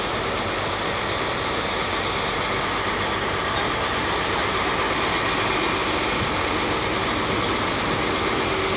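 Class 43 InterCity 125 diesel power car running as the train rolls slowly past into the platform on arrival, a steady engine and rail noise with a faint constant hum.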